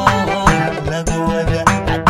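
Somali popular song played live with an oud over a steady drum beat and bass line, about two drum hits a second.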